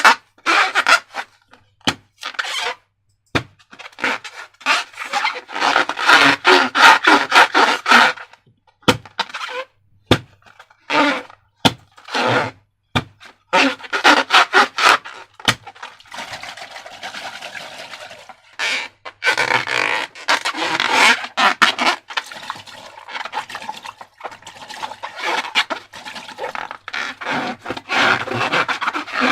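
Slime being squished and stretched by hand, with bursts of crackling and popping clicks. After about sixteen seconds it turns to a denser, steadier squelching.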